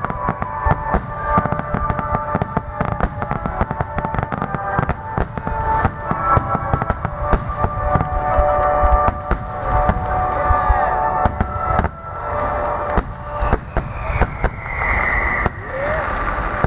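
A dense, continuous barrage of aerial firework bursts and crackling, with music playing at the same time.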